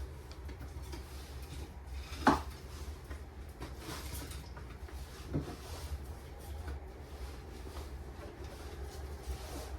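A sharp knock about two seconds in and a smaller one a few seconds later, like objects being handled and set down, over a steady low rumble and light rustling.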